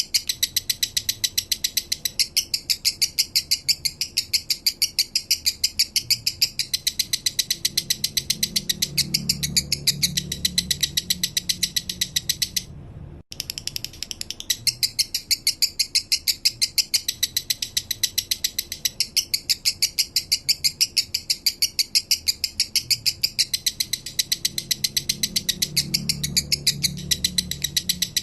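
Male lovebird's long chattering song: a rapid, unbroken run of sharp high chirps, several a second. It breaks off briefly about 13 seconds in and then starts again.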